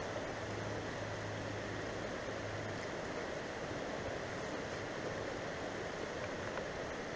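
Steady rushing outdoor background noise, with a faint low hum for the first three seconds.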